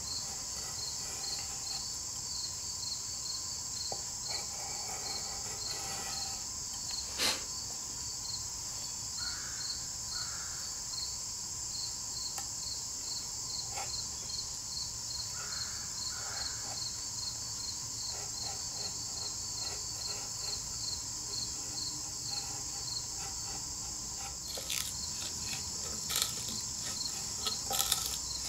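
A steady, high-pitched chorus of insects chirping with a pulsing rhythm. Under it, a knife blade cuts into the bark of a dead tulip poplar log, with a sharp tap about seven seconds in and a run of short scratchy strokes near the end.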